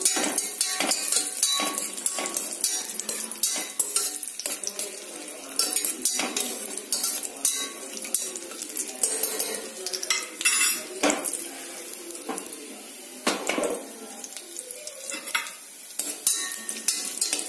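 Cashews and raisins frying in ghee in a pressure cooker, sizzling while a spoon stirs them and clinks irregularly against the pot.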